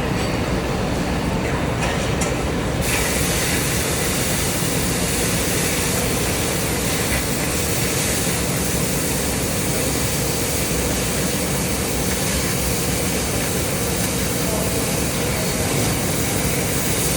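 Oxy-fuel cutting torch running with a steady roaring hiss as it cuts through the supports; the high hiss grows stronger about three seconds in and holds.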